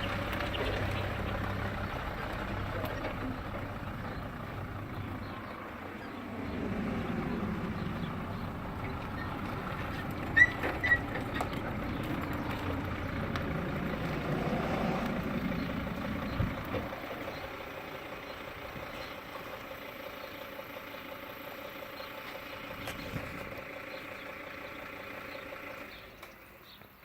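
A vehicle engine running at idle, swelling a little twice, with a couple of sharp ticks about ten seconds in; it fades out near the end.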